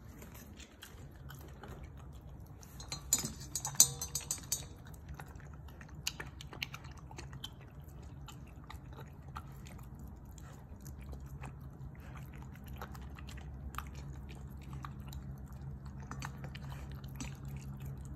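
English cream Golden Retriever puppy eating wet food from a stainless steel bowl: steady wet chewing and licking with many small clicks. A brief cluster of louder clinks comes about three to four seconds in.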